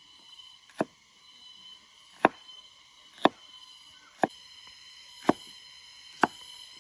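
Six sharp chops about a second apart, a knife striking a cutting board, over a steady background of thin high-pitched tones.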